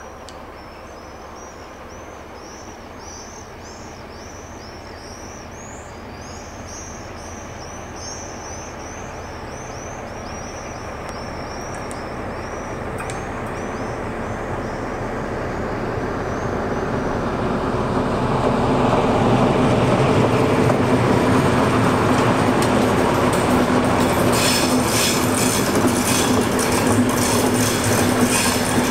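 A DR V100-type centre-cab diesel locomotive running light approaches, its engine drone growing steadily louder over the first twenty seconds. From about twenty-four seconds in, the wheels clatter and squeal over the rails as it passes close. Birds sing during the first half.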